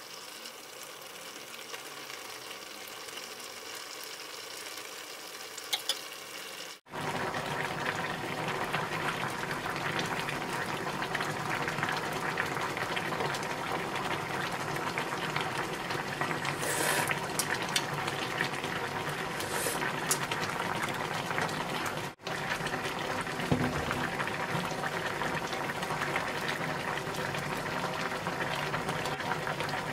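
Kimchi and mackerel broth boiling in a stainless steel pot: a steady bubbling, louder from about seven seconds in, with a couple of brief knocks.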